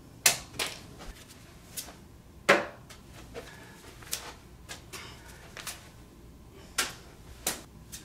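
A series of sharp, irregular taps and knocks, about ten in all, with the two loudest in the first three seconds.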